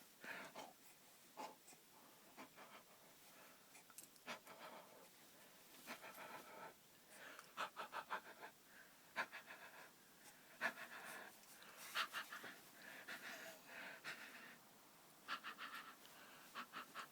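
A baby's faint, quick breathy panting in short scattered bursts during excited play.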